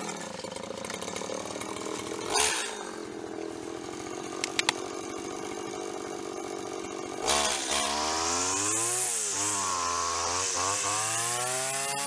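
Petrol string trimmer (brush cutter) engine running steadily at idle. About seven seconds in it is revved up and down again and again while cutting grass and weeds.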